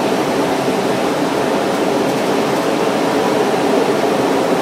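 Rubber-tyred Santiago Metro Line 1 train running at speed through a tunnel: a steady, even noise with no breaks.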